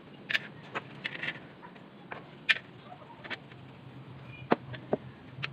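Small steel flat-bar pieces clicking and tapping against metal tubing as they are set down and shifted into place, about eight light, irregular clicks.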